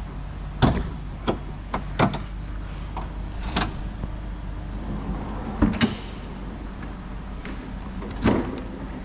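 A portable fridge's lid and latches being handled: a series of sharp clicks and knocks at irregular intervals, over a steady low hum.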